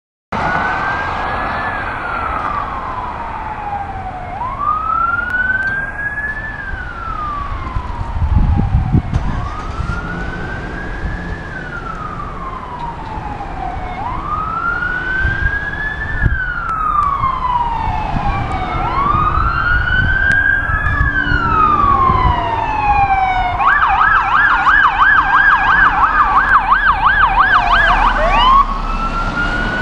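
Electronic siren on a responding fire department vehicle sounding a wail, each sweep rising quickly and falling slowly over about four seconds. Near the end it switches to a fast yelp for a few seconds, then returns to the wail.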